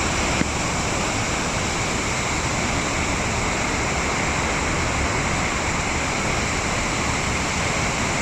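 Waterfall pouring into its pool, a steady, even rush of falling water.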